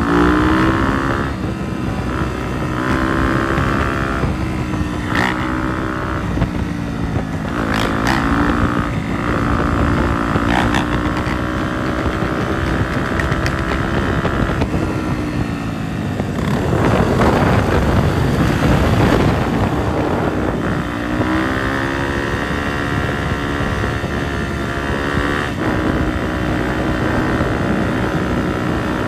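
Dirt bike engines revving up and easing off again and again, the engine note rising and falling with the throttle. A little past halfway, wind buffets the microphone for a few seconds.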